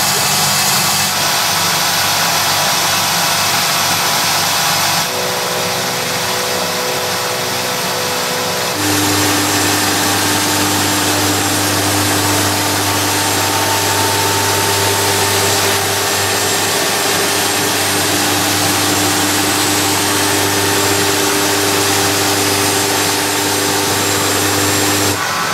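Denver Krea CNC glass machining centre running, its spindle at 6000 rpm milling a glass plate under a spray of coolant water: a loud, steady mechanical hum with hiss. The sound shifts abruptly about five seconds in and again near nine seconds, after which a low steady hum is stronger.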